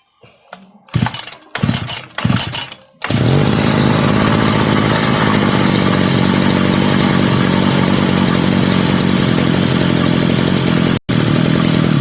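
Two-stroke brush cutter engine being pull-started. It sputters in three or four short bursts, then catches about three seconds in and keeps running steadily. It starts now that the fault in its carburetor has been repaired.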